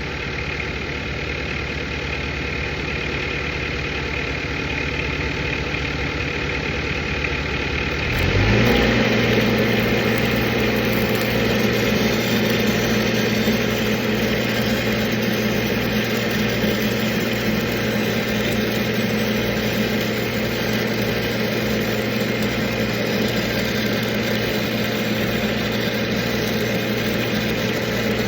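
Engine-driven welding machine running at idle, then about eight seconds in it steps up to a higher, louder steady speed as it comes off idle to supply welding current, and holds there.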